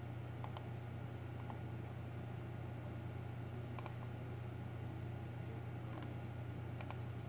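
Computer mouse buttons clicking: four short click pairs spread across the seconds, over a steady low hum.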